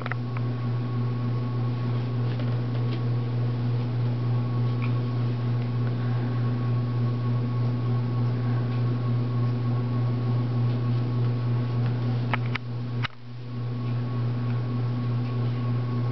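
A steady low hum with a fainter high whine above it. About twelve and a half seconds in there are a couple of faint clicks, and the hum briefly drops away.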